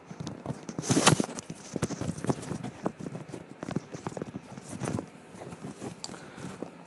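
Irregular knocks, clicks and rustles of a person moving about and handling equipment, the loudest knock about a second in.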